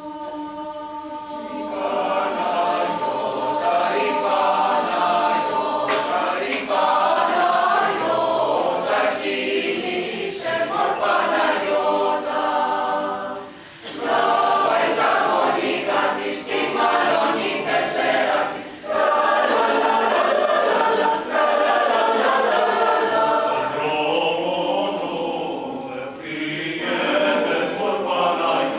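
Mixed four-part choir of men and women singing a Greek folk song from Cappadocia a cappella. It starts softly, grows fuller about two seconds in, and breaks off briefly twice between phrases.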